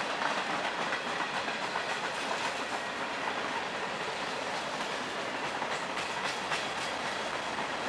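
Freight train of centerbeam flatcars and boxcars rolling past: steady wheel-on-rail noise with repeated clicks of wheels crossing rail joints, thickest about six seconds in.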